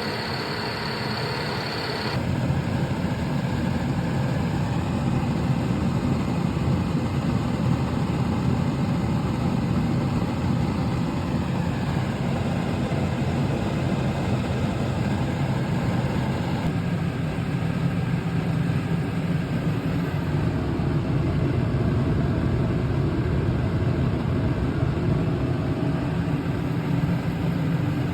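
Dehumidifier running: a steady fan and compressor hum. The sound changes abruptly twice, about two seconds in, where a high whine stops, and again a little past halfway, as from one unit to another.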